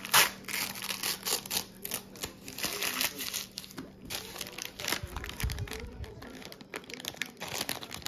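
Paper fast-food sleeve crinkling and tearing as it is pulled open and folded back from around a fried chicken patty, in irregular crackles. The sharpest crackle comes about a quarter second in.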